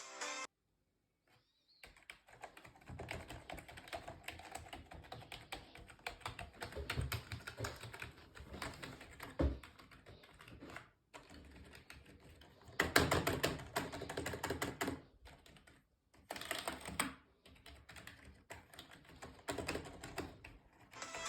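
Computer keyboard being typed on fast: dense runs of key clicks with short pauses, after a moment of silence at the start.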